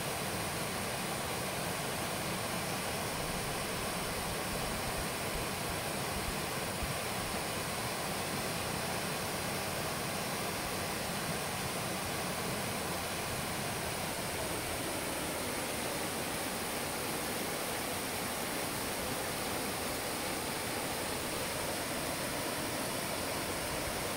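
Waterfall sliding down a broad sloping rock slab into a pool: a steady, even rushing of water.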